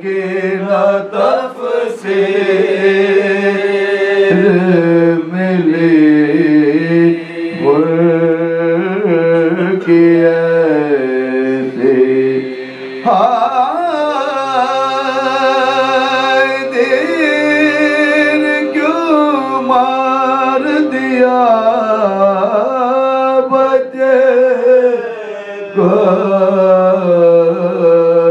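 Male voices chanting soz, an unaccompanied Urdu lament for Muharram. The melody moves slowly and is heavily ornamented, with long held notes over a steady low note that sustains beneath it, and there are brief pauses for breath.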